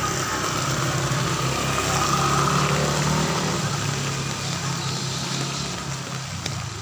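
A motor vehicle passing close by on a wet street: its engine hum grows louder to a peak about two and a half seconds in, then fades. A steady hiss of heavy rain runs underneath.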